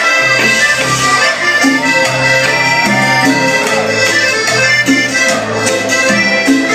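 A live band playing Latin dance music loud through the venue's sound system, with a bass line, rhythmic percussion and held melody lines, heard from within the crowd.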